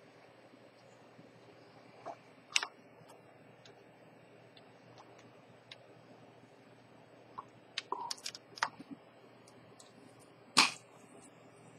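Small clicks and taps from a Chanel J12's steel folding clasp and black ceramic bracelet being handled, scattered through, with a cluster of quick clicks a little past the middle and one sharper knock near the end.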